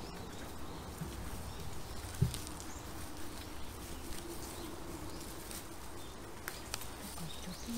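Faint scraping and rustling of soil and roots as a hand trowel digs around a buried tree stump, with one dull thump about two seconds in.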